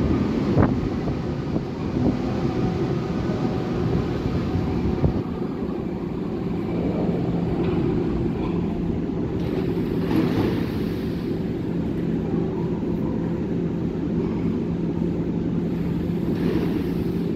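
Berlin U-Bahn train braking into the station and coming to a stop, its rolling rumble easing off about five seconds in. It then stands at the platform with a steady low hum from its onboard equipment.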